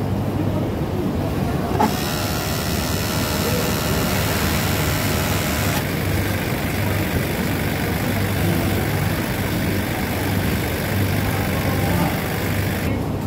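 Steady hum and noise of a garment factory floor's industrial sewing machines. A higher hiss starts with a click about two seconds in and stops shortly before the end.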